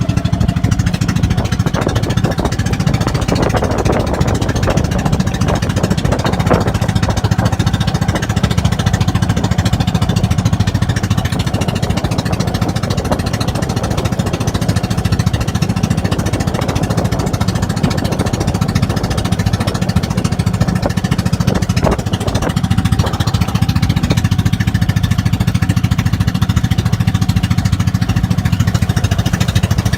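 Boat engine running steadily with a fast, even chugging.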